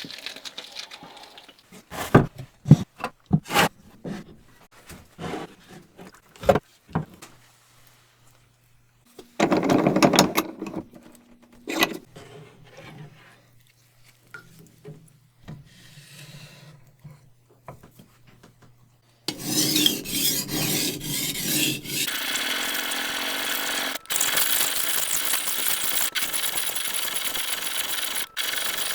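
Hand work on a knife in a workshop: scattered sharp taps and knocks, then from about two-thirds of the way through a steady rubbing, filing-like sound that keeps going.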